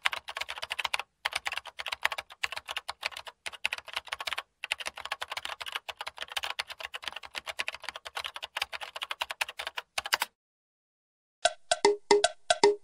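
Typing sound effect: rapid keyboard keystroke clicks, several a second, stopping about ten seconds in. After a short gap, a second run of sharper, ringing key clicks starts near the end.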